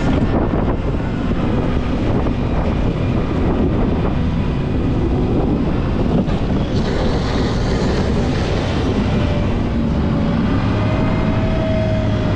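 Volvo L90H wheel loader's diesel engine running steadily under load while plowing snow, with a faint whine that glides in pitch near the end.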